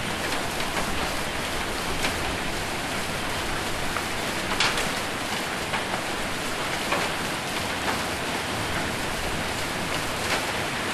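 Heavy rain falling steadily on a roof, with sharper single hits of hailstones every couple of seconds.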